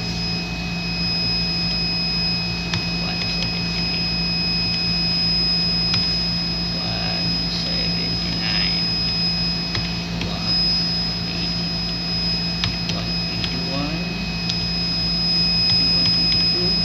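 Steady hum of laboratory machinery with a thin high whine over it. Light keyboard clicks are scattered through as sample numbers are typed in.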